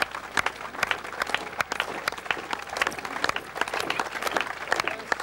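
A crowd applauding, a dense irregular patter of sharp claps with faint voices behind it.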